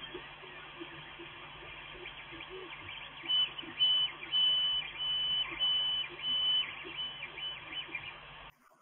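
Creality Ender 3 3D printer printing on its original 8-bit Creality controller board. The stepper motors whine in high tones that start, stop and change pitch every half second or so as the print head moves, over a steady fan whir, and the sound cuts off abruptly near the end.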